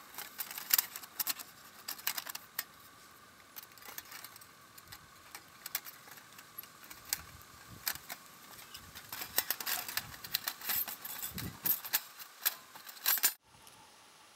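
Thin metal panels of a folding Element 2.2 wood-burning camp stove clinking and clicking as they are handled and their hinges lined up and fitted together: irregular sharp metallic clicks. They stop abruptly about 13 seconds in.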